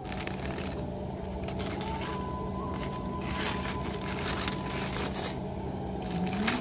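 Aluminium foil crinkling and tearing as it is peeled back and slit open with a knife, in a steady stream of crackles with a sharper crunch near the end, over a steady low tone.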